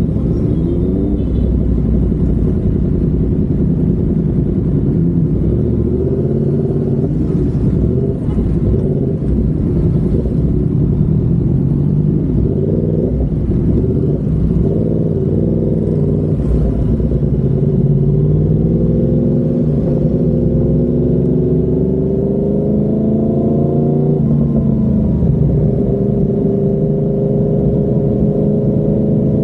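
Yamaha MT-10's 998 cc crossplane inline-four running through an SC Project carbon-titanium exhaust while riding. Engine speed wanders for the first part, then climbs steadily for several seconds past the middle, drops suddenly near the end and climbs again.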